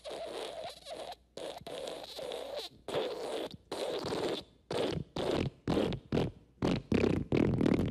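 Fart sound effect: a long string of noisy, sputtering bursts with short gaps between them. The bursts come shorter and faster from about halfway through and run together, louder, near the end.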